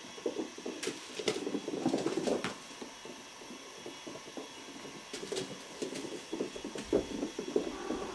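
Irregular rustling and scratching with a handful of sharp clicks, over a steady hiss.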